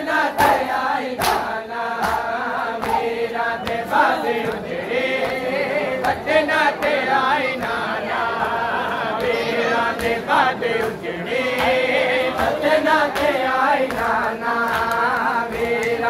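A crowd of men chanting a Punjabi noha, a Muharram lament, together, with the sharp slaps of hands beating on bare chests (matam) through the chant.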